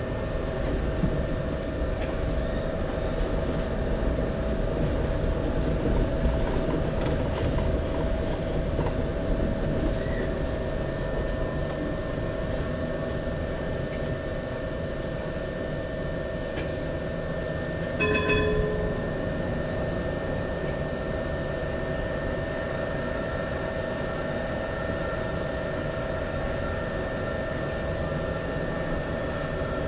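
Interior running noise of an HTM GTL8 articulated tram: a steady rumble from the wheels and running gear with a constant hum. A thin high whine joins about a third of the way in and holds, and a brief ringing tone sounds about two-thirds of the way through.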